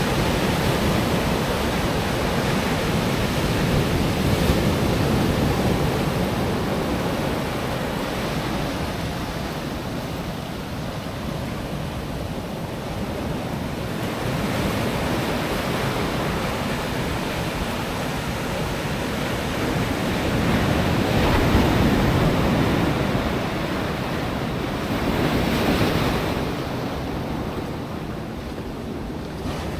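Pacific Ocean surf breaking and washing up the shore, a steady rush that swells louder every several seconds as each wave comes in.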